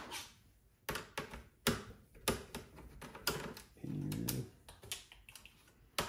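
Irregular sharp clicks and taps, about two a second, of a screwdriver working screws in the metal chassis of an all-in-one computer. A short low hum-like sound comes about four seconds in.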